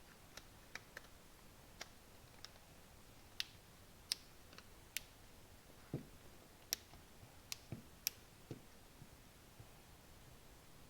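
Light, irregular clicks and taps, about fifteen over ten seconds, from handling a smartphone and its small parts during reassembly.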